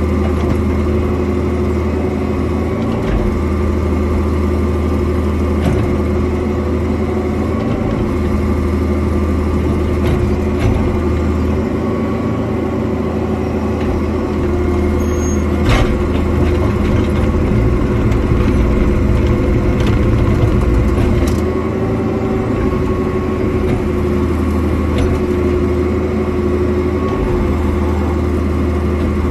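Cat 305.5 mini excavator's diesel engine and hydraulics running steadily under work, with a few sharp knocks as the bucket digs and rakes through ground and brush, the loudest about sixteen seconds in.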